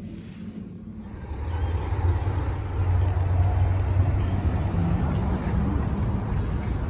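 Road traffic: vehicles passing on a busy street, a steady low rumble that starts about a second in.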